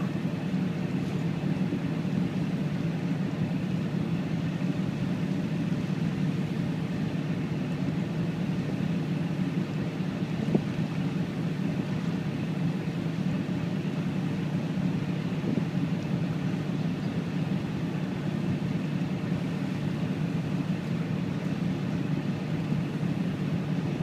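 Small passenger ferry's engine running steadily while under way, a low even drone with water noise, and one brief click near the middle.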